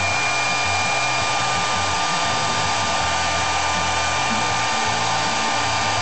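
Hand-held hairdryer running steadily: a rush of blown air with a steady high whine from its motor.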